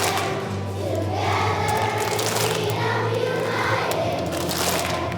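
Elementary-school children's choir singing a patriotic song, holding long notes over musical accompaniment.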